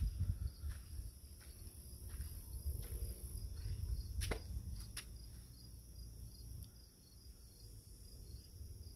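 Evening chorus of crickets and other insects chirping steadily in a high band, over a low, uneven rumble, with a couple of sharp clicks about halfway through.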